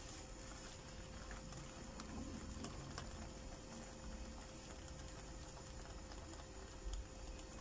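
Faint crackle of a crepe cooking in an oiled nonstick pan, with a soft knock about seven seconds in.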